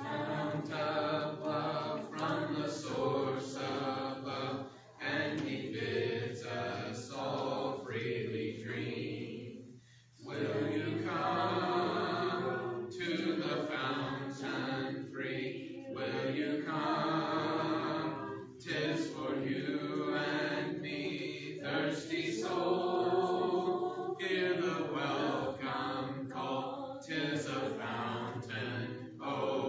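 A church congregation singing a hymn a cappella, the invitation song that closes the sermon. The voices sing in long phrases with short breaks between lines.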